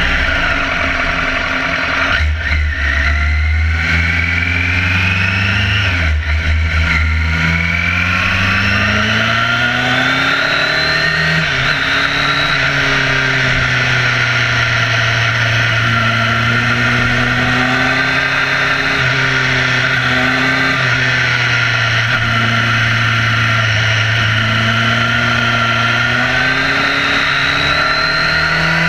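Motorcycle engine at speed, heard from a camera mounted on the bike. The revs rise, drop sharply about six seconds in at a gear change, and climb again, then rise and fall gently through the bends over a steady rushing noise.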